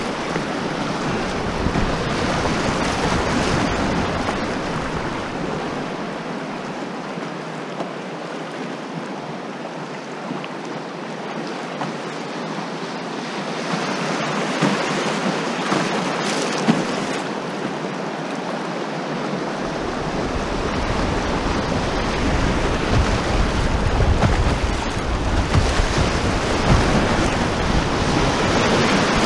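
Rushing water of whitewater rapids around a canoe, a steady hiss and splash that gets louder near the end. A low rumble is heard in the first few seconds, drops out, and comes back about two-thirds of the way through.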